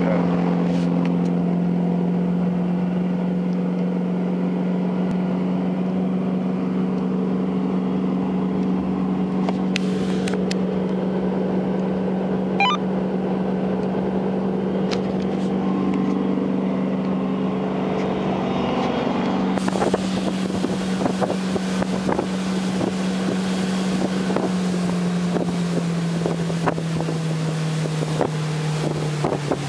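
2006 Chaparral 274 Sunesta deckboat's engine running at a steady speed, with wind on the microphone getting stronger after about twenty seconds. The engine's pitch drops near the end as it slows.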